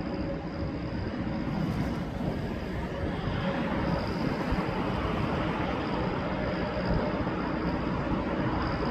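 Jet airliner engines running, a steady rumble with a faint high whine.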